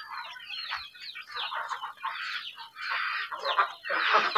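Young kampung chickens peeping: many short, high, falling chirps several times a second, growing denser and louder near the end.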